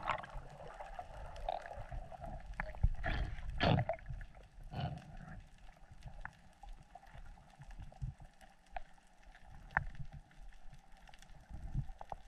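Underwater sound picked up by a camera in its waterproof housing while swimming over a reef: a low water rumble with scattered faint clicks and a few short gurgling surges about three to five seconds in.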